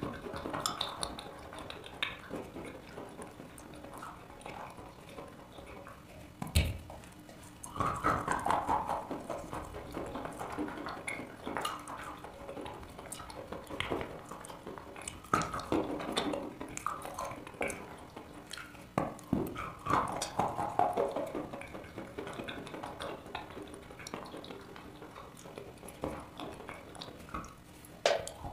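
Close-miked chewing of chalk: wet crunching and squishing mouth sounds with scattered clicks, a sharp bite about six and a half seconds in and another near the end.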